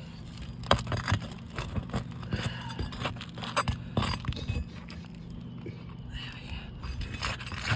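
Metal tool scraping and clicking against roof shingles and their nails while prying a shingle loose to pull the nail, a string of short irregular scrapes and knocks over a steady low hum.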